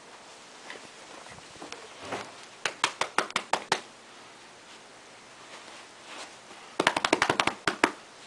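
Hands drumming quick pats on a cat's back and sides like bongos: two fast runs of slaps, about eight a second, the first a few seconds in and the second near the end.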